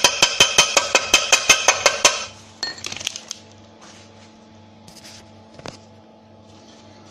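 Rapid hammer taps on a steel car oil pan, about seven a second with a metallic ring, working the fresh weld over the repaired crack. The tapping stops after about two seconds, followed by a short clatter of metal and then a few faint clicks.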